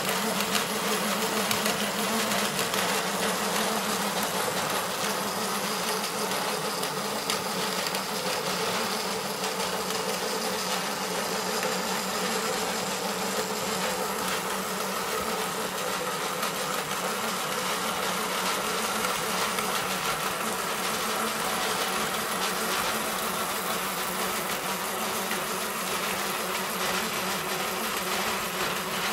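Wondermill grain mill driven by a car radiator fan motor through #25 roller chain and 60- and 15-tooth sprockets, running steadily while grinding wheat into flour: a constant buzzing drone with grinding noise.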